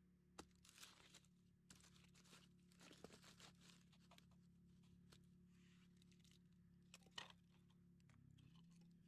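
Faint rustling and crinkling with a couple of sharp clicks, over a low steady hum.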